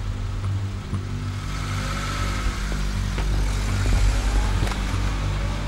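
Car engine running steadily, with a couple of light clicks as a car door is opened.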